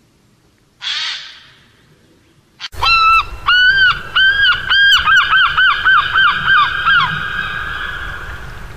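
A bird calling: a series of arched, honking notes, slow at first, then quickening into a rapid run that merges into a drawn-out note and fades. A short hiss sounds about a second in.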